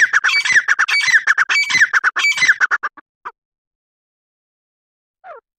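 Grey francolin calling: a fast run of short notes, each falling in pitch, for about three seconds, then stopping abruptly. After a pause comes a single falling note near the end.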